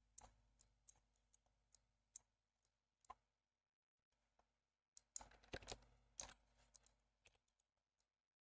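Faint, scattered clicks of a computer keyboard and mouse, with a short run of keystrokes about five seconds in.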